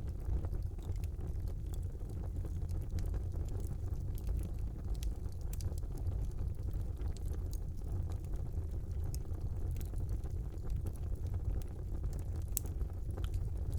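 Wood fire burning in a fireplace: a low steady rumble of the flames with frequent small crackles and pops, a sharper pop near the end.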